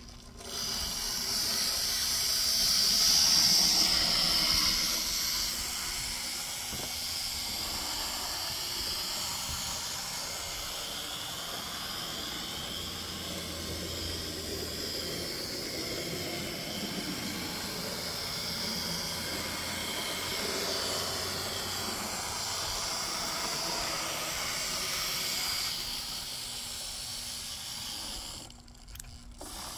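Z scale Micro-Trains C&O F7 model locomotive on a test run: its tiny motor and wheels make a steady hissing whir on the track. The sound is loudest in the first few seconds, then evens out.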